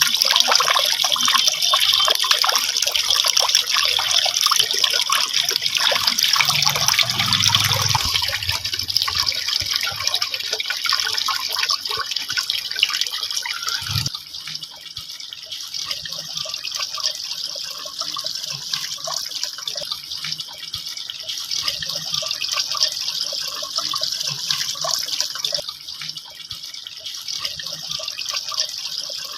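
Water from a small homemade fountain trickling and splashing steadily. About halfway through there is a single knock, and the water sound turns a little quieter after it.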